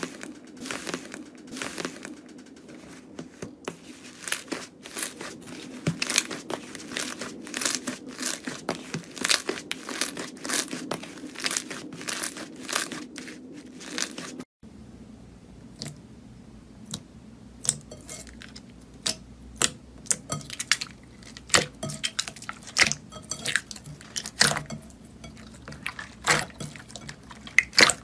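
Slime being squeezed and kneaded by hand in a bowl, giving many sharp, irregular clicks and pops, with a brief break about halfway through.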